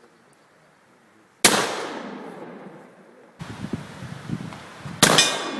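Black powder pistol fired twice, about three and a half seconds apart, each shot a sharp crack followed by a long fading boom.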